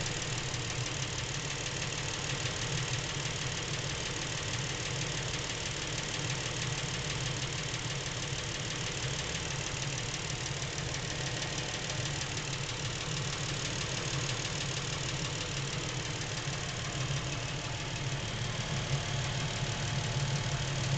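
Lincoln MKX's Ford 3.7-litre V6 idling steadily with a repetitive knocking. The owner reports the knock has been there since new at 7,000 miles and seems to be getting worse; the dealer calls it normal.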